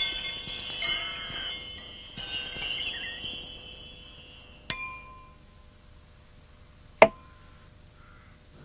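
Wind chime tinkling: several strikes ring out in high, overlapping tones and fade away over the first four seconds. A small click comes about five seconds in and a sharper, louder click about seven seconds in.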